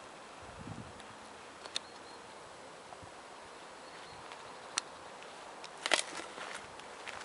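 A few sharp clicks over a low, steady background hiss: single clicks about two and about five seconds in, and a louder short cluster of clicks about six seconds in.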